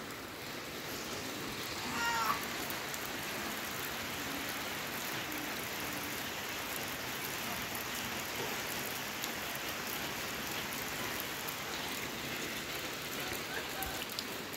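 Steady rain falling, a soft even hiss. About two seconds in, a short animal call rises and falls in pitch.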